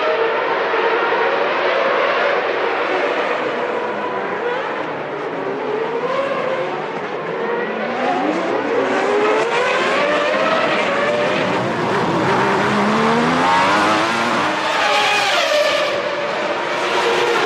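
Several 1993 Formula One race cars' engines at high revs, their pitch climbing through the gears and dropping sharply on each shift, with more than one car heard at once.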